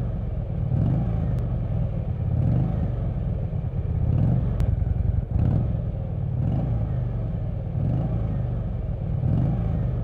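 Motor vehicle engine running, a steady low rumble with small swells in level.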